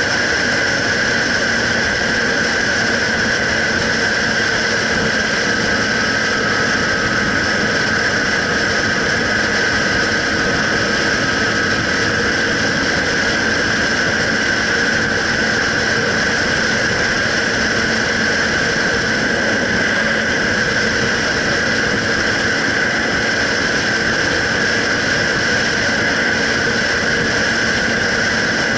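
A motorcycle cruising at a steady speed: wind rush and engine running together without change, with a steady high whistle over it.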